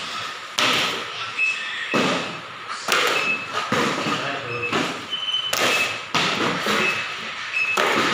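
Small cardboard boxes tossed one after another onto a hard floor, landing with sharp thuds and slaps about once a second.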